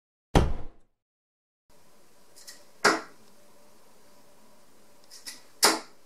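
Two steel-tip tungsten darts striking a bristle dartboard, sharp hits about three seconds apart. Before them, out of silence, a single edited thud effect that dies away within half a second.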